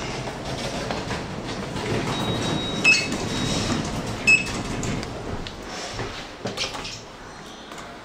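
A small passenger lift running with a steady rumble, and two short electronic beeps as its car buttons are pressed, about three and four seconds in.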